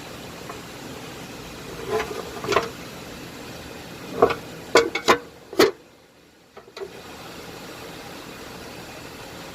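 Engine parts and tools being handled during an engine teardown: a series of sharp clicks and knocks, about six of them, between two and six seconds in. A steady background hiss runs underneath and drops out briefly just after the loudest knocks.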